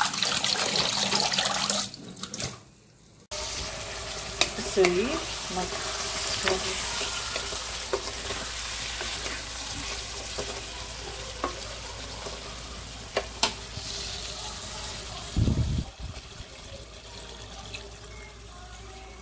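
Water running and being poured into a steel wok of simmering curry, with scattered clicks and a short dull thump a few seconds before the end.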